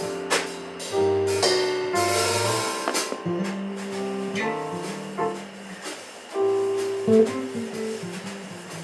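A small live band playing: electric bass carrying a low line under keyboard, with drums and cymbals.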